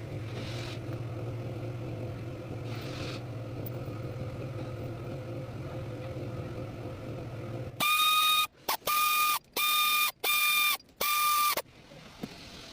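Chevrolet Lumina engine running steadily with a low hum, its water pump replaced and the pump noise gone. About eight seconds in the hum cuts off and five loud, high-pitched beeps follow, each about half a second long.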